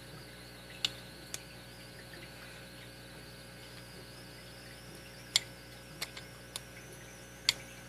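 Short sharp metallic clicks and taps, about six of them spread out, from a heavy padlock and tools being handled while it is taken apart. A faint steady high-pitched hum runs underneath.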